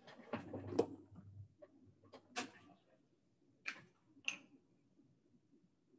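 Faint handling of paper cutouts and a glue stick: a few light clicks and taps over the first four seconds or so, then near silence.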